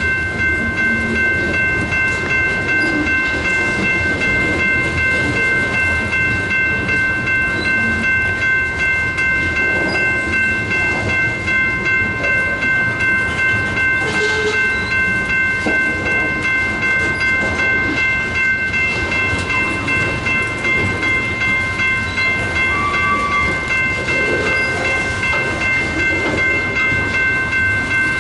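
Freight train of covered hopper cars rolling past at close range, a steady rumble with the wheels clacking rhythmically over the rail joints. A steady high whine of several pitches runs unchanged under it throughout.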